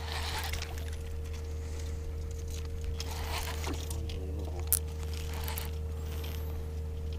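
A steady low hum with a faint constant whine, under short swishing water and handling noises from the boat, with one sharp click.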